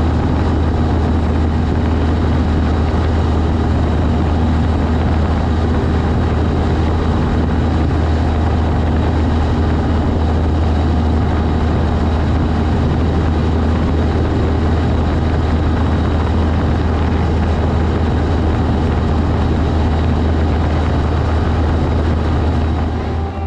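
Cessna 152's four-cylinder Lycoming engine and propeller running at a constant power setting, a loud, steady drone with no change in pitch.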